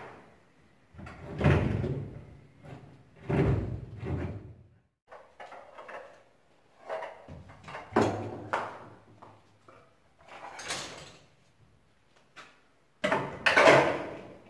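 Kitchen cabinet drawers sliding on their runners and things knocking about inside them as they are emptied, in about five separate spells with quiet gaps between, the loudest near the end.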